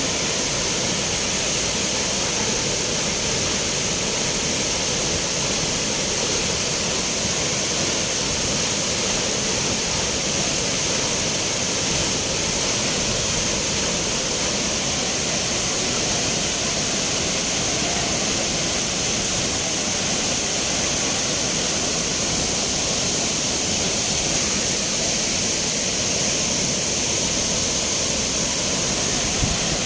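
Rushing water of a natural spring, a loud, steady, unbroken rush.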